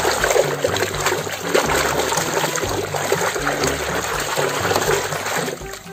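A hand swishing and scrubbing a toy cement-mixer truck in a tub of thick muddy water: continuous sloshing and splashing that tails off near the end.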